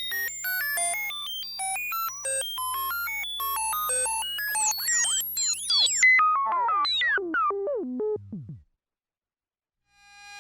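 Synthesized digital-signal sound effect: a rapid stream of short electronic beeps jumping between random pitches, then a cascade of falling pitch sweeps that slides down to a low tone and cuts off suddenly. After a second or so of silence, a new electronic tone fades in near the end.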